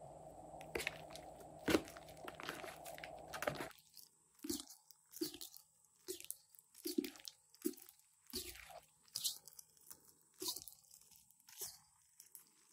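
Hands squeezing and kneading fluffy slime, giving wet squishes with crackly popping from trapped air. The squeezes come in a regular rhythm of a little more than one a second, starting about four seconds in.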